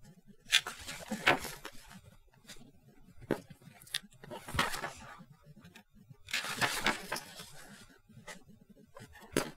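Paper pages of a thick instruction manual being turned and pressed flat, in several separate rustles with a few sharp ticks between them.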